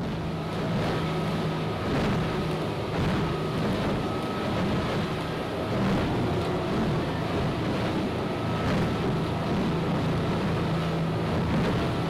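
Boat's outboard motor running steadily at speed, a low drone with a faint higher whine, over rushing water and spray from the wake, heard from inside the boat's cabin.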